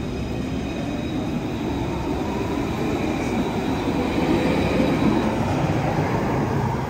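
Train running on the rails: a steady, dense rumble with faint high whining tones above it, swelling a little midway and easing near the end.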